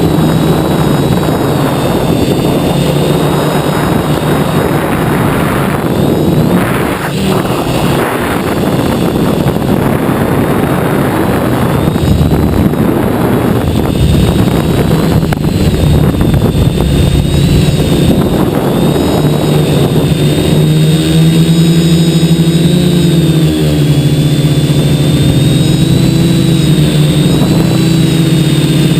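Quadcopter's 2212 brushless motors and propellers buzzing in flight under a rush of wind noise, their pitch shifting with throttle. From about two-thirds of the way in, the motor hum becomes steadier and more clearly pitched.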